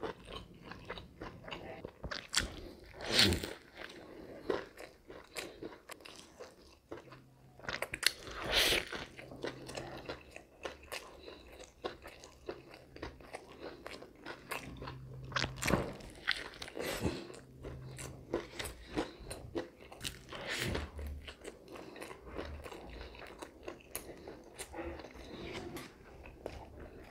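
Close-miked eating of a fried-fish and lettuce sandwich: steady chewing with wet mouth clicks and crunching bites. A few louder crunches stand out, about four of them spread through the stretch.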